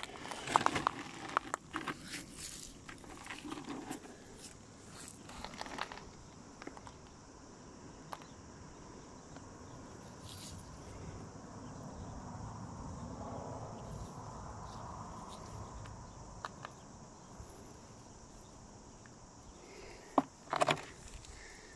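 Shells and pebbles crunching and clicking underfoot and in the hand on a shell-strewn beach, busiest in the first few seconds and again near the end, with a steady high insect buzz underneath.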